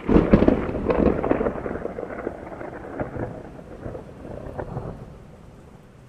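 A thunderclap over steady rain: a sudden crack at the start, then crackling rumble that fades away over about five seconds, leaving the hiss of rain on a hard surface.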